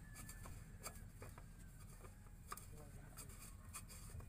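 Faint rubbing and a few light clicks of hands twisting a Caterpillar secondary fuel filter canister tight by hand, over a low background hum.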